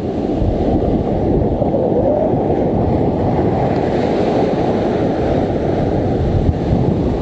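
Heavy surf breaking and washing up a sand beach close by, with strong wind blowing across the microphone as a continuous rumbling rush.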